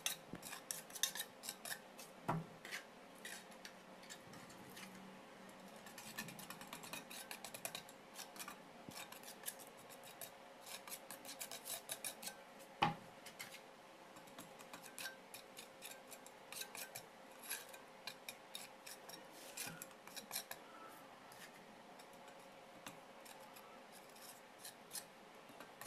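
Hardened cement being scraped and picked off a cement-coated mould piece by hand: a stream of short scratchy scrapes and crackles, with a sharper knock about 13 seconds in.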